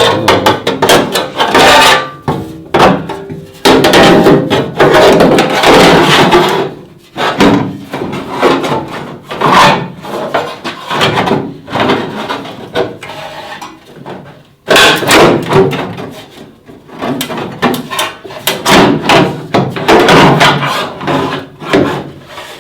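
Sheet-steel battery tray being knocked, scraped and rattled as it is hammered and forced into place in a car's rear quarter panel. The clatter comes in loud stretches of a couple of seconds, broken by short pauses.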